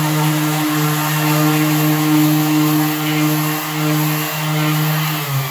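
Cordless random orbital sander running steadily against a wooden speaker-cabinet panel: a loud, even motor hum over a sanding hiss. It starts to wind down, falling in pitch, at the very end.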